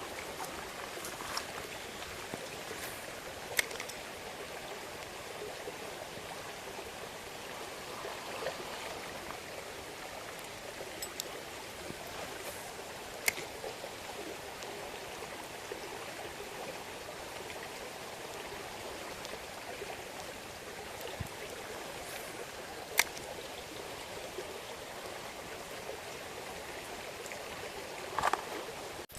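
Small stream running, a steady rush of water, with three brief sharp ticks spread through it.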